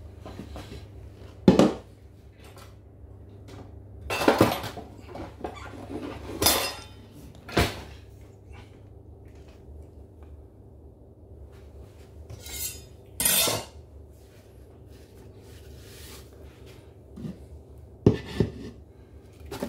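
Kitchen clatter: a plastic blender jar and utensils being handled and set down on a wooden board, about eight separate knocks and clinks spread out with quiet gaps between, over a faint low hum.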